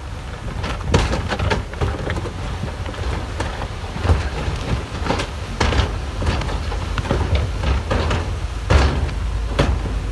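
Heavy earthmoving machinery working: a diesel engine running low and steady under many irregular clanks and knocks.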